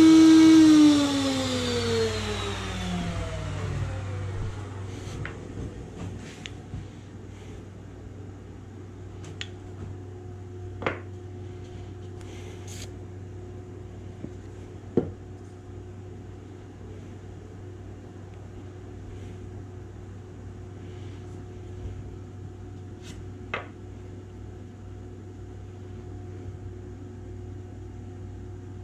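Wood router mounted under a router table running, then switched off about a second in and spinning down, its whine falling in pitch over about three seconds. A steady low hum carries on underneath, with a few light knocks of wooden parts being handled.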